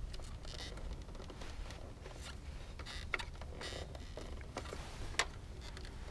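Handling noise from work on generator wiring: scattered light clicks, taps and brief rustles, with one sharper click about five seconds in, over a low steady rumble.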